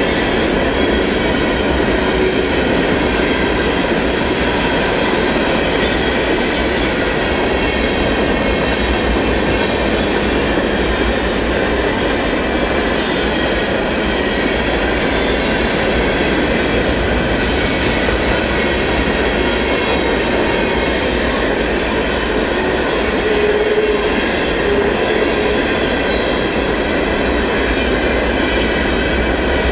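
Freight train rolling past at track side: the loud, steady rumble of wheels on rail, with faint steady high tones over it.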